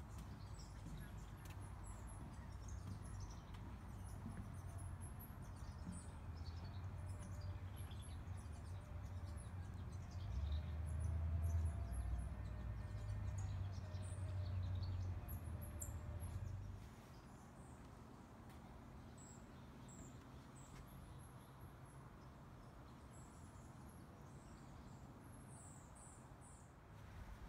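Small birds chirping and calling in the trees: many short, high notes scattered throughout. Under them runs a low rumble, loudest around the middle, that drops away about two-thirds of the way through.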